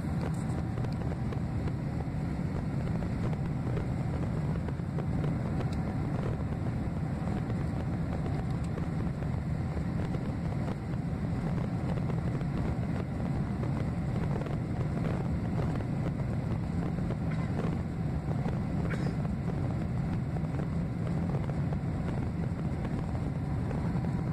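Steady cabin noise of a Boeing 767-300ER climbing out after takeoff: the low, even drone of its two General Electric CF6-80C2B6 turbofans mixed with the rush of air over the fuselage, heard from a window seat over the wing.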